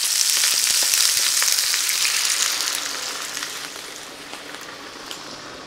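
Beef roast and soup vegetables sizzling in a hot stainless steel pan, a steady high hiss that fades over the last few seconds as the cold red wine marinade is poured in and takes the heat out of the pan.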